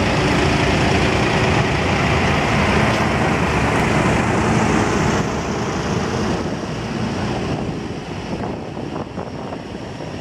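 Diesel engines of Fendt tractors driving past at slow speed. The engine sound is loud for the first five seconds or so as the nearest tractor goes by, then drops suddenly and stays lower as the next tractor approaches.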